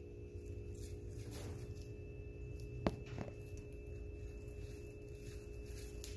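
Steady low electrical hum with a faint high whine, broken by a sharp click about three seconds in and a softer click a moment later.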